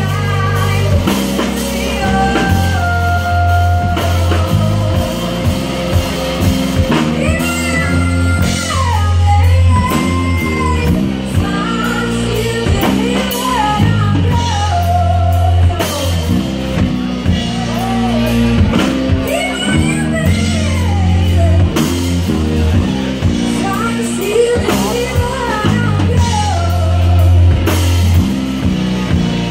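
A live rock band playing: a woman singing into a microphone over electric guitar, bass guitar and a drum kit.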